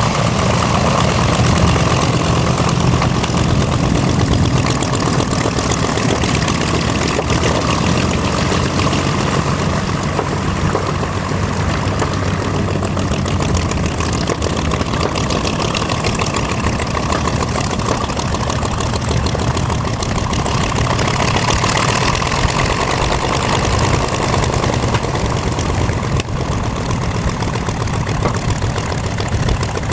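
The twin radial engines of a North American B-25 Mitchell running steadily, a deep rumble that holds the same pitch and loudness throughout.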